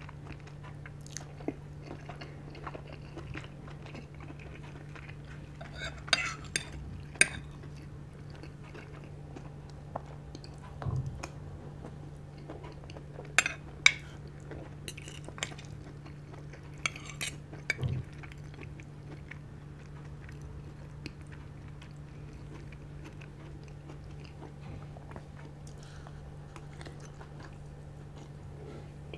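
Close-miked eating: chewing and crunching, with a fork and spoon clinking and scraping on ceramic plates in a few sharp clicks, over a steady low hum.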